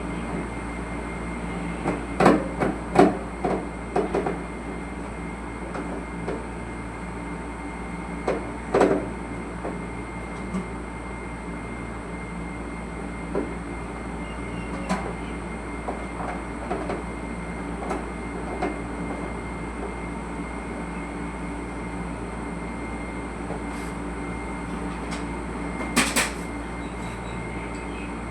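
Steady mechanical hum with several fixed whining tones, broken by scattered sharp knocks and clicks: a cluster a couple of seconds in, another about nine seconds in, and a loud one near the end.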